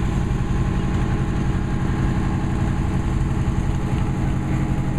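Fire truck's engine running steadily at low speed as the aerial ladder truck rolls slowly past, a constant low drone.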